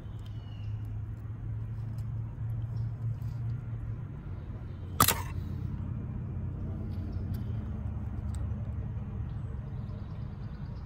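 A small metal pick scraping and ticking inside a diesel injector bore as it works out the old injector heat shield, with one sharp metallic click about halfway through. A steady low hum runs underneath.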